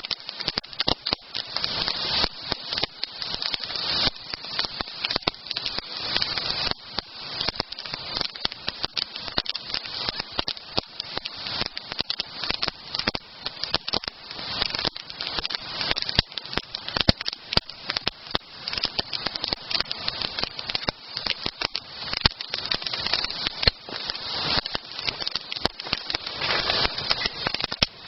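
Wood campfire burning, crackling with many small pops and snaps over a steady hiss.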